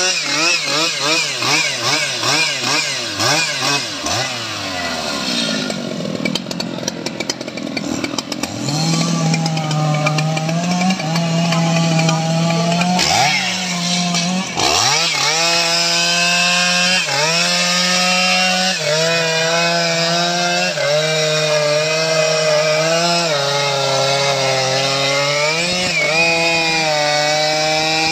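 STIHL MS 881 two-stroke chainsaw cutting through a teak log. It revs up and down rapidly for the first few seconds, then runs flat out in the cut, its pitch dipping briefly every second or two as the chain bites under load.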